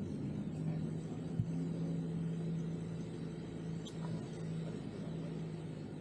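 Car driving, its engine and road noise making a steady low hum, with a single brief knock about a second and a half in.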